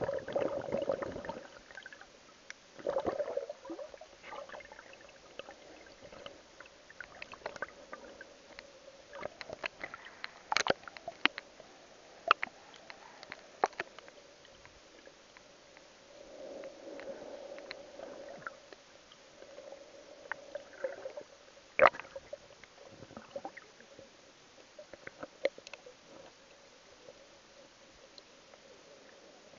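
Underwater sound picked up by a submerged camera: muffled sloshing water movement that swells and fades, with scattered sharp clicks and crackles, the loudest about 11 and 22 seconds in.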